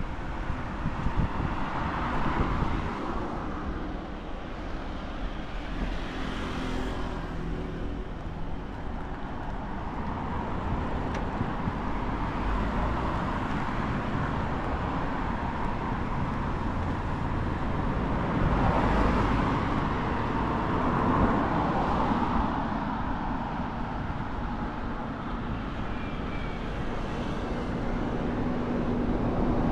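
Road traffic: several cars pass one after another, their tyre and engine noise swelling and fading over a steady traffic hum.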